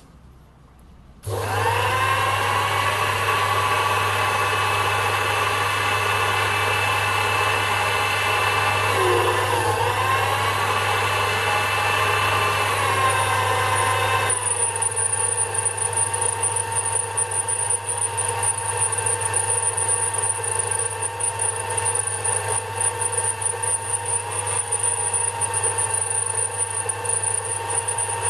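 Sherline micro lathe switched on about a second in, its motor and spindle coming up to full speed with a steady hum and whine. The pitch dips briefly around nine seconds in, and about fourteen seconds in the sound changes and a high steady whine joins it as the cutting tool takes a cut on the spinning metal workpiece, throwing chips.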